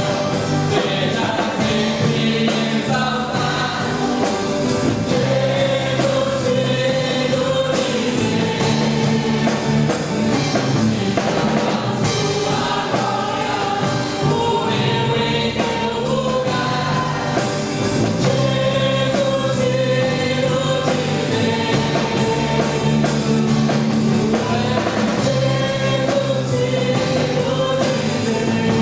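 Live worship band playing a Christian song in Portuguese: a man sings lead while strumming an acoustic guitar, with other voices joining, over electric guitar and a drum kit.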